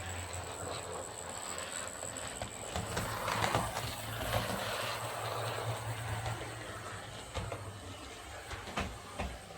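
Hornby Class A1 OO gauge model locomotive running round the track, its motor whirring and wheels clicking over rail joints, louder as it passes closest about three to five seconds in. It runs smoothly on newly fitted wheel pickups, which give a slight scraping noise until run in.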